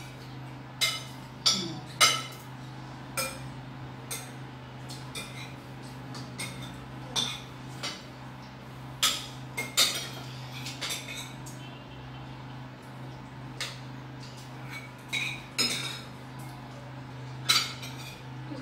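Spoons clinking and scraping against plates and bowls as people eat: scattered sharp taps every second or so, over a steady low hum.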